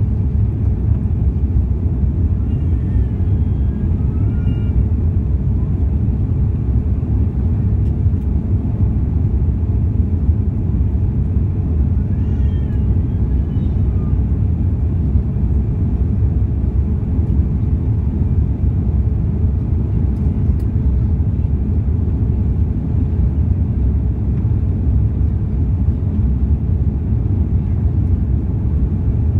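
Steady low roar of an airliner cabin in flight, engine and airflow noise heard from a window seat over the wing. Twice, about three seconds in and about twelve seconds in, a faint brief high voice-like sound rises over it.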